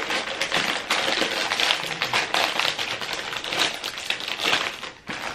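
Foil-lined snack bag crinkling as it is handled and pulled open: a dense, continuous crackle that dips briefly near the end.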